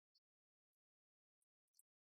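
Near silence, broken by a few faint, short ticks of chalk striking and scratching the blackboard as digits are written.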